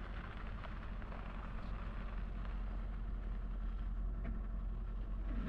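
A car engine running nearby as a steady low rumble, growing a little louder through the middle.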